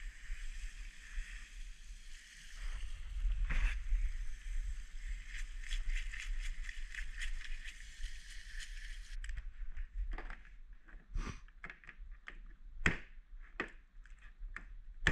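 Garden hose spray nozzle hissing as it rinses a blue manna crab, with the scratching of a scrubbing brush on the shell; the spray cuts off abruptly about two-thirds of the way in. Then a series of sharp knocks and clicks as crabs are broken up on a plastic cutting board.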